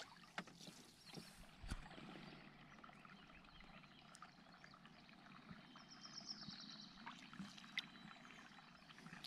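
Quiet canoe paddling: faint paddle strokes and water sounds, with a few light knocks.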